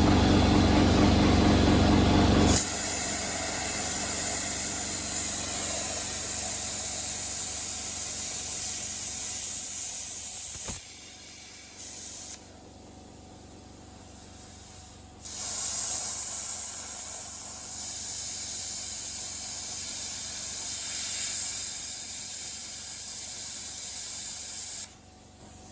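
Electric arc welding on a steel implement: two long runs of steady hissing crackle, each about ten seconds, with a short pause between them. A low rumble at the start cuts off after about two and a half seconds, when the first run begins.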